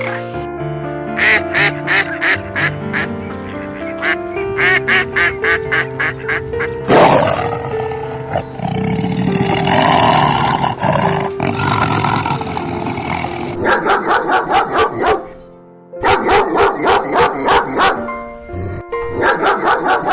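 Duck quacking in fast runs of short calls over background music.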